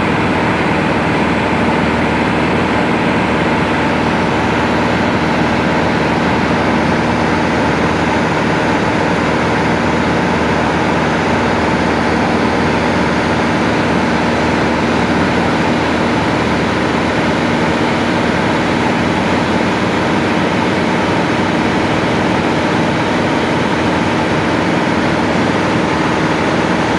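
Cessna light aircraft's piston engine and propeller droning steadily in level flight, heard inside the cabin as a constant hum with several steady tones over a broad rush of noise.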